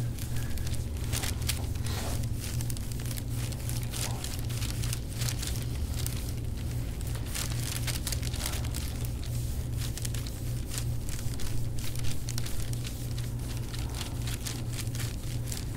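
Irregular crackling and crunching clicks as a forearm grinds slowly into a knotted muscle of the upper back, over a steady low hum. This is the 'graininess' the chiropractor reads as overstressed tension in the muscle.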